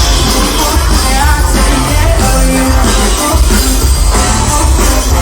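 Loud live concert music from an outdoor stage PA: a singer over a band with a heavy, pounding bass.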